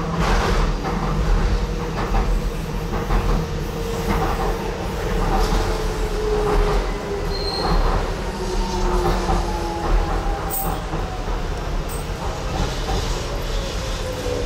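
Docklands Light Railway train running, with a steady rumble and clicks of wheels on rail under an electric motor whine that slowly falls in pitch as the train slows towards Canning Town.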